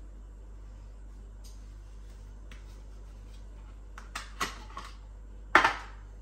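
Clicks and knocks of a Thermomix's stainless steel mixing bowl being handled on a wooden counter and its blade assembly unlocked and taken off, with one loud clunk about five and a half seconds in. A low steady hum lies underneath.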